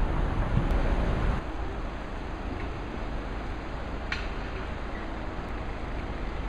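Outdoor background rumble, with low wind noise on the microphone heavier for the first second and a half, then a steadier, quieter hum with a faint click about four seconds in.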